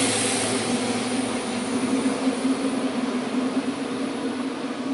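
Two-car diesel multiple unit running away along the track, its engine drone and wheel-on-rail noise fading steadily as it recedes.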